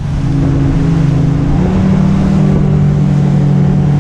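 Motorboat engine running hard while towing a tube, its pitch stepping up twice in the first two seconds as it accelerates, then holding steady. A rushing noise of wind and water runs under it.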